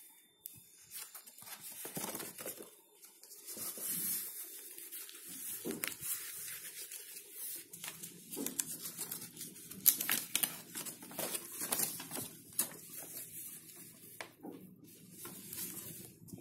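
Paper and card rustling and crinkling as folded panels of a paper gift box are opened and handled, with scattered small taps and clicks. A faint low hum comes in about halfway through.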